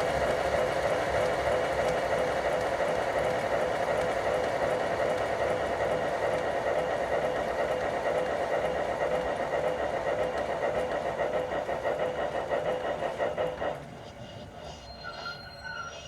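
A G-scale LGB Porter model steam locomotive running, its sound decoder playing steam-engine running sound together with the model's motor and gear noise. The pulsing grows more distinct toward the end, and the sound cuts off abruptly about 14 seconds in, leaving only a few faint high tones.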